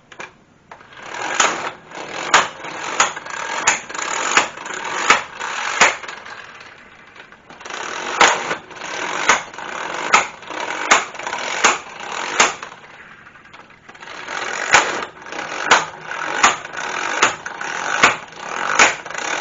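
Wagan Tech 12-volt corded 1/2-inch impact wrench running lug nuts back on and hammering them tight, with sharp repeated blows over the motor noise. It runs three times with short pauses between, one run per lug nut.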